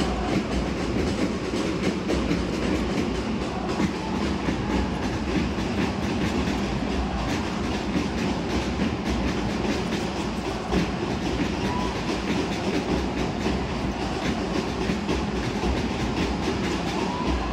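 Steady crowd din of a basketball game in a large, echoing arena, with a few brief high squeaks from the court.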